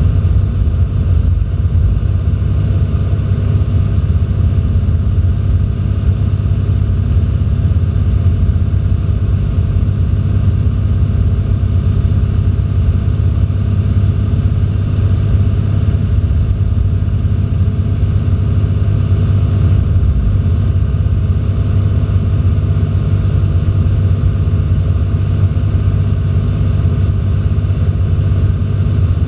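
Cessna 172's piston engine and propeller droning steadily in cruise, heard from inside the cabin.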